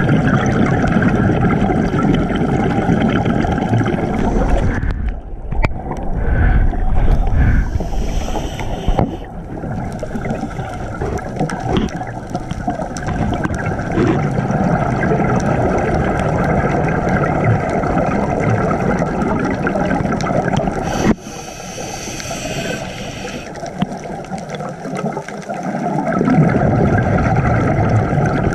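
Underwater noise picked up by an action camera in its waterproof housing: a steady watery rumble with gurgling, which twice gives way for a few seconds to a thinner, higher hiss.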